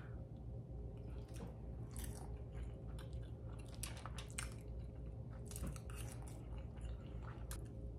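Close-miked eating sounds: a fork cutting through a stack of pancakes and clicking against the foil-lined tray, then a forkful of pancake bitten and chewed, with scattered short clicks and crackles.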